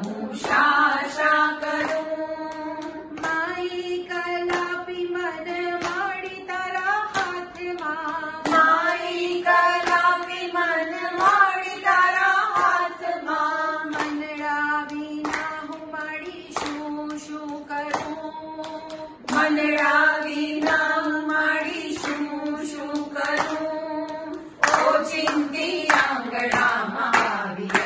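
A group of women singing a Gujarati garba without instruments, drawing out long held notes, with hand claps keeping the beat. The clapping gets stronger near the end.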